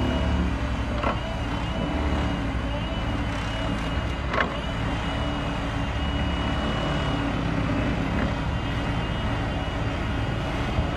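Excavator's diesel engine running steadily under load while a hydraulic vibratory plate compactor on its arm tamps loose soil. Two brief knocks, about a second in and again about four and a half seconds in.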